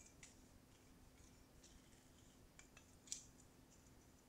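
Near silence with a few faint, sharp clicks and light metal taps from a steel caliper and plasma-cut steel plates being handled, the loudest about three seconds in, over a faint steady hum.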